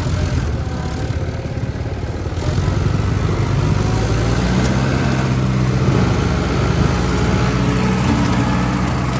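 Tractor engine running under load while driving a rotary slasher through thick African love grass. The engine note grows louder and heavier about three seconds in as it works harder in the dense grass.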